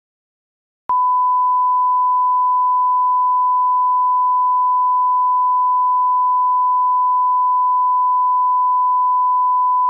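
Steady electronic test tone, a single pure pitch like a broadcast 1 kHz line-up tone, starting abruptly about a second in after silence and holding unbroken at a constant level.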